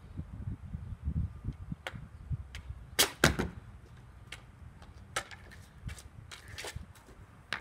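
Hockey stick being worked on an asphalt driveway: scattered sharp clicks of the stick blade striking the ground and the puck or ball, with two loud cracks close together about three seconds in.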